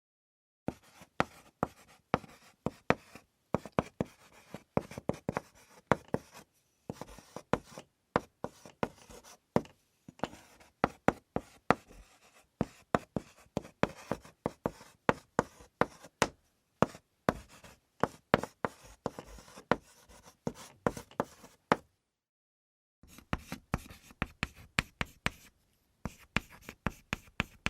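Chalk drawing on a hard surface in quick short strokes, each a sharp tap and brief scrape, several a second. It breaks off for about a second near the start and again about three-quarters of the way through.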